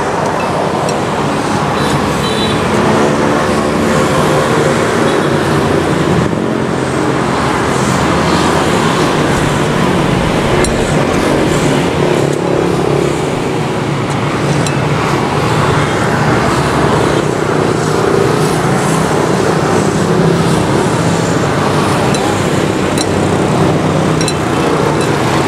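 Steady road traffic noise, with vehicle engines passing close by.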